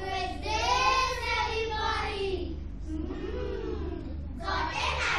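A child's voice singing long, drawn-out notes, with a steady low hum underneath.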